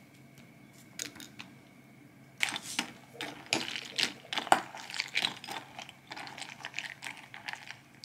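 Metal spoon clinking and scraping in a ceramic bowl of cereal and milk: a quick run of small clicks and clatter that starts a couple of seconds in.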